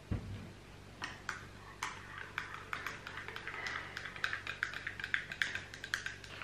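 Metal spoon stirring a drink in a mug, clinking against the side in short light clicks, a few at first and then about three to four a second. A soft low thump right at the start.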